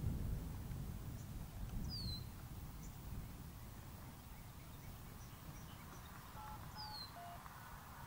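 Outdoor ambience: a low wind rumble on the microphone that eases off, with a bird giving short, quick falling chirps about 2 seconds in and again about 7 seconds in.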